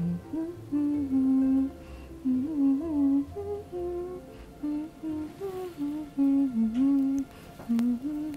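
Someone humming a slow tune, held notes stepping up and down, over soft background music.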